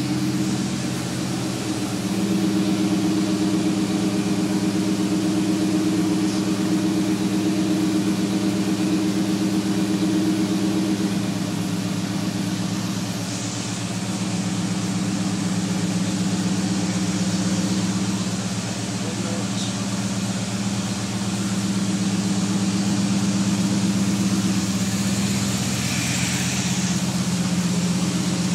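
1996 Ford Bronco's engine idling steadily, a low hum that shifts slightly in pitch a few times.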